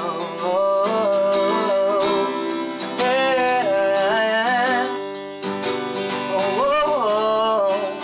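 Acoustic guitar being strummed, with a wordless sung melody of long, wavering notes over it.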